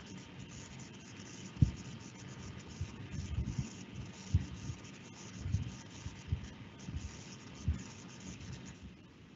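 Irregular dull low thumps, about ten of them, over a steady hiss. The loudest comes about a second and a half in.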